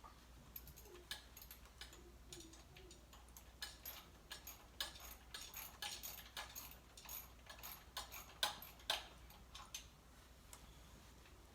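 A string of irregular light clicks and taps from hand tools and engine parts being handled, thickest in the middle stretch, with some sharper ones about eight and a half to nine seconds in.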